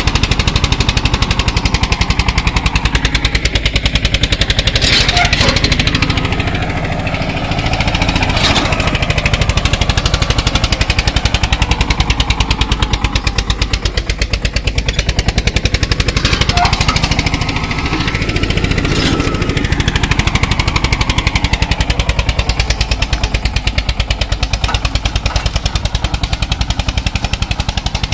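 Tractor diesel engine running under load while pulling a disc harrow, a fast steady beat of exhaust pulses that barely changes in level.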